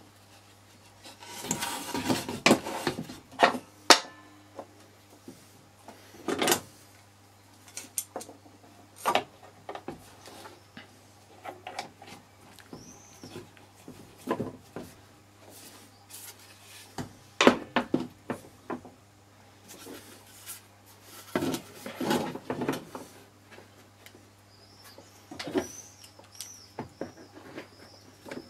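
Steel bar clamps and plywood corner squares being set and tightened against laminated chipboard panels on a metal saw table: irregular knocks, clicks and rubbing of metal and wood, in clusters with pauses between them.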